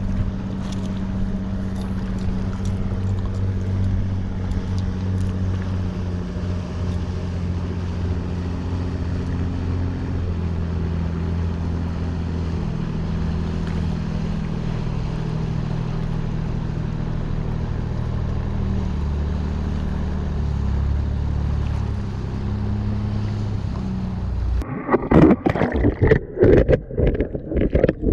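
Low steady drone of a boat engine running nearby, its pitch shifting a little now and then. About 24 seconds in it gives way to loud, choppy sloshing and bubbling of water around an underwater camera.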